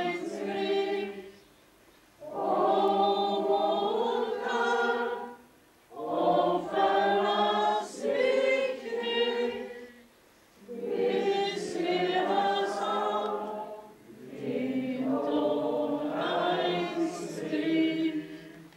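A group of voices singing a hymn without accompaniment, in phrases with short pauses for breath between them.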